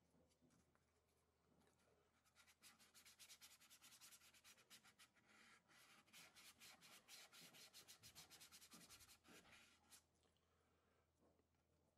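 Faint, quick back-and-forth scratching of a small paper sail rubbed along the edge of a sanding board, several strokes a second. It starts about two seconds in and stops a couple of seconds before the end.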